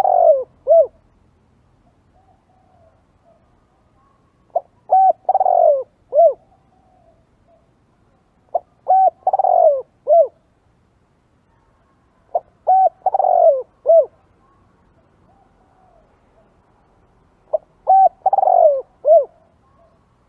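Spotted dove cooing: the same phrase of a couple of short coos, a long falling coo and a closing coo, repeated about every four seconds as a lure call for wild spotted doves.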